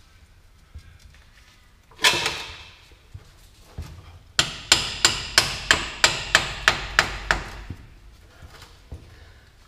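Hammer blows on metal at the differential's drain plug: one ringing blow about two seconds in, then a quick run of about ten ringing blows at around three a second.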